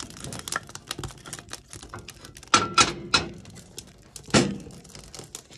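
Small sticks of firewood clattering and knocking against the cast-iron firebox of an antique wood cookstove as they are pushed in through the stovetop opening. There is a fast run of light clicks and several louder knocks, some with a short metallic ring, the loudest about two and a half to three seconds in and again about four and a half seconds in.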